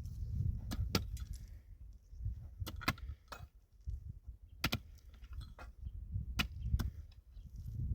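Irregular sharp clicks and clinks, about a dozen, over a steady low rumble.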